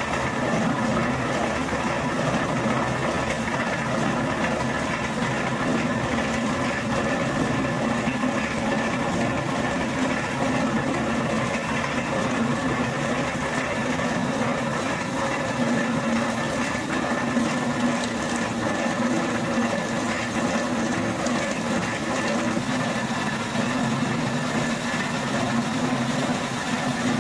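Motor-driven rotary oil mill (ganiga) running steadily: the electric motor, belt drive and rotating pestle in the mortar make an even mechanical hum with a few constant tones, unchanging throughout.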